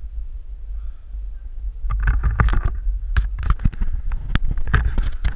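Handling noise from a GoPro being picked up and carried: a low rumble on the microphone, with a run of knocks and rubbing against the camera housing starting about two seconds in.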